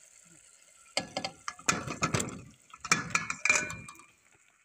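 Chunks of brinjal and potato tipped into a metal cooking pot of fried masala, knocking and clattering against the pot in two batches, about a second in and about three seconds in.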